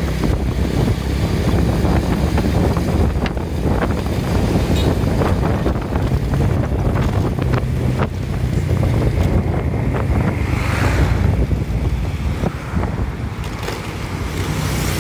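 Wind buffeting the microphone of a rider on the move, over the steady low hum of a motorcycle engine and tyre noise on the road. It eases slightly near the end.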